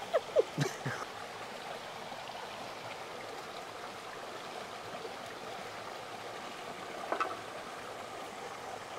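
River water flowing steadily over rocks, an even rushing noise. A few short clicks and blips come in the first second, and another brief sound about seven seconds in.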